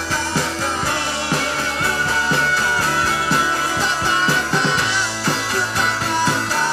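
Live rock band playing: electric and acoustic guitars, bass guitar and a drum kit keeping a steady beat, with a long high note held over it through most of the passage.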